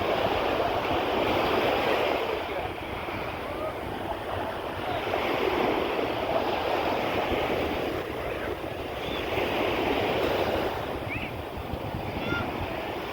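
Sea surf washing onto a beach, swelling and easing about every three to four seconds, with wind rumbling on the microphone.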